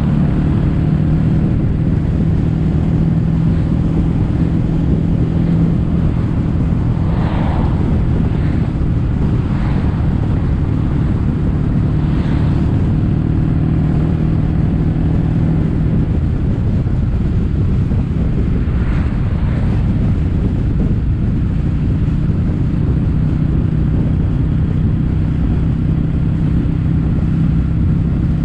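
Kawasaki W800's air-cooled parallel-twin engine running steadily under way, heard through aftermarket Yamato stainless-steel Caburton-style silencers, with wind noise on the microphone.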